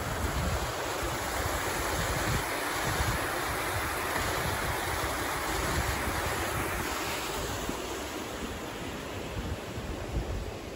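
Hot spring water rushing down a steaming stone-lined channel, a steady rush that eases off near the end.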